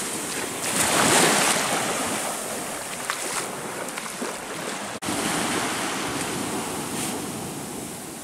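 Sea surf washing onto the beach, a steady rushing wash that swells and eases, with wind buffeting the microphone. The sound cuts out for an instant about five seconds in.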